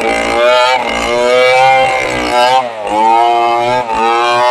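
Stihl two-stroke chainsaw running at full throttle as it rips lengthwise through a log. The engine pitch dips briefly twice under the load of the cut, once a little past halfway and once near the end.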